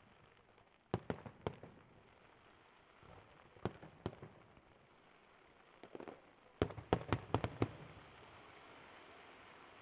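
Fireworks display: groups of sharp firework bangs, four quick reports about a second in, two more around four seconds, then a few small crackles and a rapid string of about six bangs near seven seconds.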